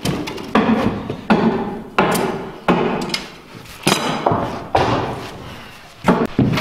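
Background music with a heavy, steady percussive beat, a little under one and a half hits a second, each hit ringing out with a pitched tail.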